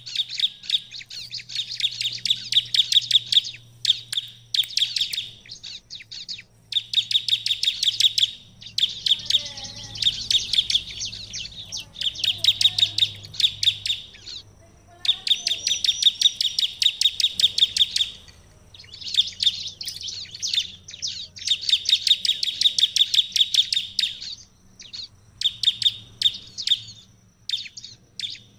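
Bar-winged prinia (ciblek) singing vigorously: runs of rapid, high, repeated notes, each a second or two long, with short breaks between them. A faint low hum lies underneath.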